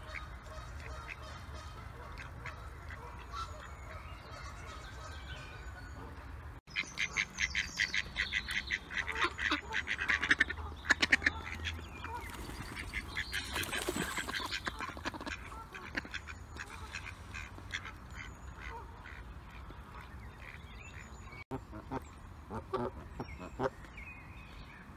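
Mallard ducks quacking in a loud, rapid run of many calls that thins out after a few seconds. Near the end come a few short, separate Canada goose honks.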